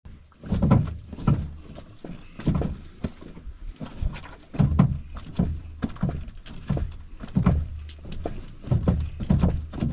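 Footsteps on a dirt trail with knocks from a canoe carried overturned on the shoulders, heard from under the hull as uneven thumps about once a second.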